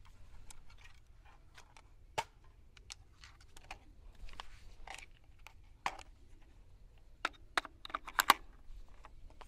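Scattered light clicks and clacks of handling a Radical Firearms FR16 AR-15 and its magazine while a fresh magazine is readied. A quick run of sharper clicks comes about eight seconds in.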